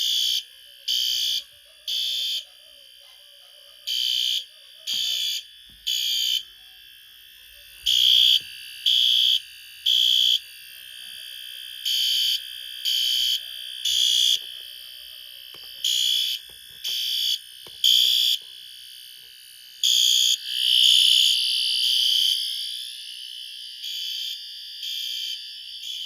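Simplex and System Sensor fire alarm horns sounding together in the temporal-3 pattern: three short blasts a second apart, then a pause, repeating every four seconds. This is the standard evacuation signal. About twenty seconds in, a longer steady tone sounds for about two seconds.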